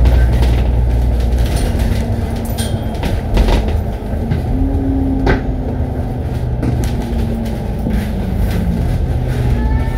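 Inside a moving double-decker bus: a steady low engine and road rumble, with rattles and clunks from the body and fittings.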